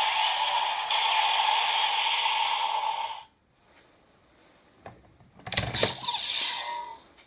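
Electronic sound effect from a Bandai DX Kamen Rider Build transformation toy's speaker, stopping abruptly about three seconds in. After a short pause come clicks and a clatter of the plastic toy being handled, followed by a brief electronic tone.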